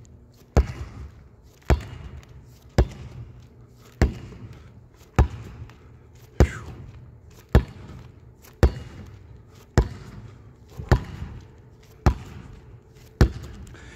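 A basketball dribbled on a hardwood court at a slow, even pace: twelve bounces, a little over a second apart, each echoing through the empty arena.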